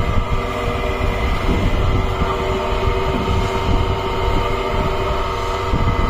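Small pan-type concrete mixer running steadily: its drive motor hums with constant tones while the rotating paddle arms churn through damp concrete mix in the steel drum, giving a rough, uneven grinding rumble.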